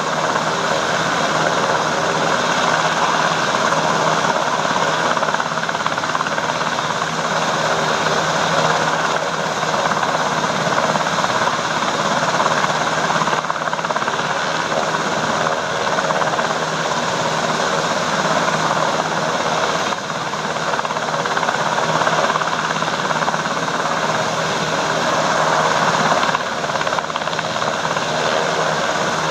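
Sikorsky UH-60 Black Hawk helicopter running on the ground: its twin turbines and turning rotor make a loud, steady noise with no change in pitch or level.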